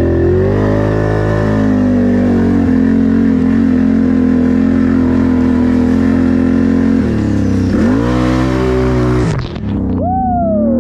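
Can-Am 1000 ATV's V-twin engine running at steady revs in low gear, then revving up and down about seven seconds in. A brief dip and a falling whine follow near the end.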